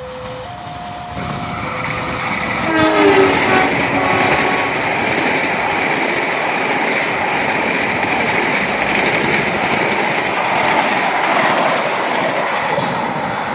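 Indonesian passenger train passing at speed: a loud, steady rush of wheels on rails, with a short horn blast about three seconds in. A level crossing's alternating two-tone warning signal sounds at the start before the train drowns it.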